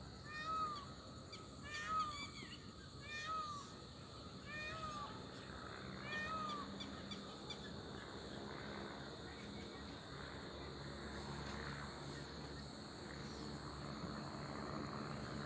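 An animal's short arched call, rising then falling, repeated about once every second or so for the first seven seconds. After that only a steady evening background of faint chirps and insects remains.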